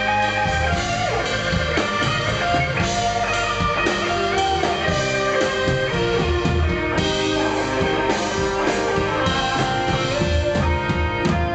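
Instrumental passage of a rock ballad: guitar notes, some bending in pitch, over a steady drum kit beat, with no singing.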